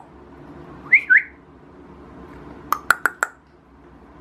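Two short whistled chirps about a second in, then four quick sharp tongue clicks, a person's attention-getting sounds.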